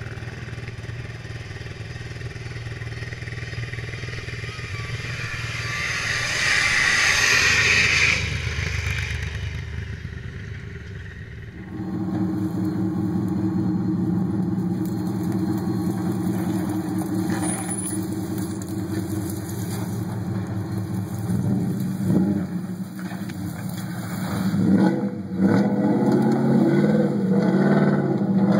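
Supercharged off-road engines under load, in two clips. First a quad's engine on sand rises to a peak about seven seconds in and falls away. After a cut about 12 seconds in, a pickup truck's engine works steadily over rough ground and uphill, with louder bursts of throttle near the end.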